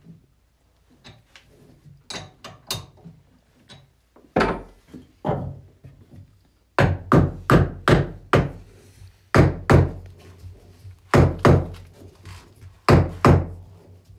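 A hammer knocks a wooden cup blank onto the tapered metal chuck of a Japanese-style lathe. Lighter taps come first, then heavier blows in quick groups of three or four.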